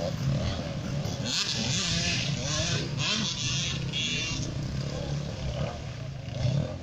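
Enduro motorcycle engine running and revving as the bike rides past on the dirt course, with a steady low engine note underneath. Several loud hissing bursts come between about one and four seconds in.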